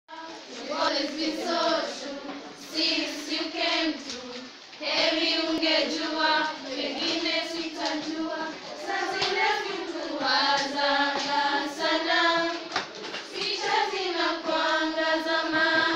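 A group of schoolgirls singing together in chorus, holding long notes in phrases, with brief pauses between them.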